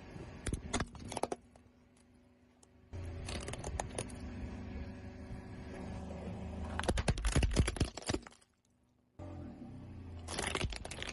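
Hollow plastic toy cracking and snapping under a slowly rolling car tyre on asphalt, in several bursts of sharp cracks, the loudest about seven seconds in, over a low steady rumble from the car.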